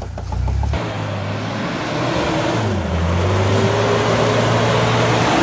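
Off-road 4x4 engine running under load as it drives through mud, its pitch rising and falling with the throttle, over a steady rushing noise. The sound changes abruptly just under a second in.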